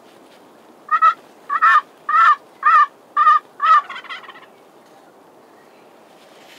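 A series of six loud turkey yelps, evenly spaced at about two a second, tailing off into a few softer notes.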